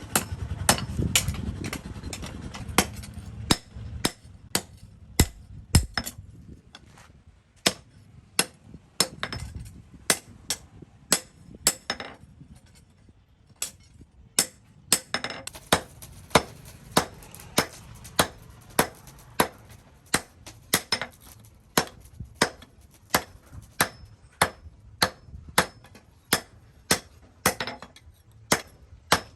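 Hand hammer striking hot steel on an anvil in steady forging blows, about one and a half a second, each with a bright metallic ring, and a short pause partway through. A low rumble sits under the first few seconds.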